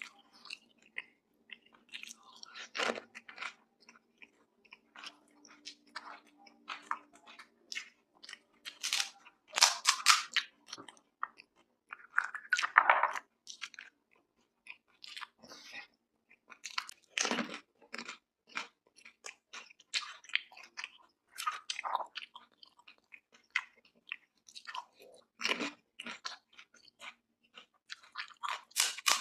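Close-miked chewing and crunching of pani puri: crisp puri shells cracking between the teeth, with a run of smaller crackles and several louder crunches every few seconds.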